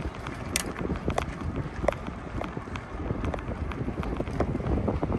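Bicycle on the move: irregular light clicks and rattles from the bike over a steady low rumble of tyres and wind on the microphone.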